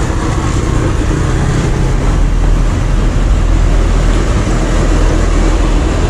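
Loud road traffic noise: a steady low rumble of motor vehicles passing close by.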